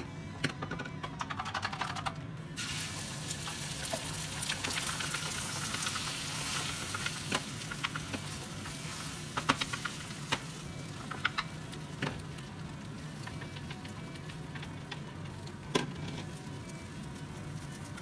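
Beaten egg sizzling in an oiled frying pan. The sizzle starts abruptly about two and a half seconds in, as the egg meets the hot oil. Chopsticks click sharply against the pan now and then as the egg is spread thin.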